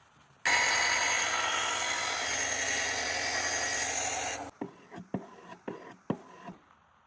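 Loud, steady abrasive scraping of steel, as on a grinder or sanding belt. It starts abruptly about half a second in and cuts off about four seconds later, followed by several sharp knocks.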